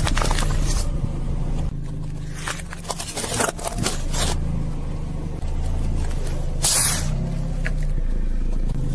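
A car's engine runs low and steady as its tyre rolls over and crushes objects, with several sharp cracks and crunches, the loudest about two-thirds of the way in.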